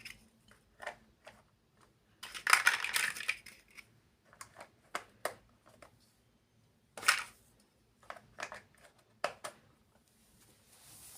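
Small plastic building blocks being handled and pressed together: scattered sharp clicks and taps, with a longer rustling clatter of pieces about two to three and a half seconds in and a sharp click about seven seconds in.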